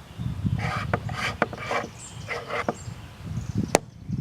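Scraper pulled across a wooden cabinet door, lifting finish softened by chemical stripper: a run of short rasping scrapes about a second apart, with a sharp tap near the end.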